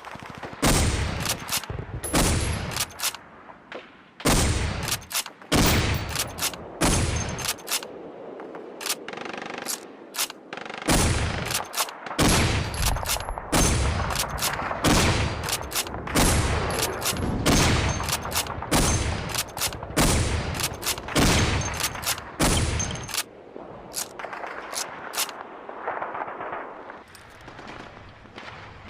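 Lee Enfield bolt-action rifle firing shot after shot, roughly one a second, with sharp clicks between the shots; the shots thin out and grow quieter near the end.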